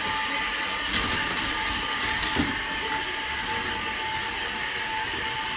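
Vacuum cleaner running steadily: a constant motor whine over an even rush of air.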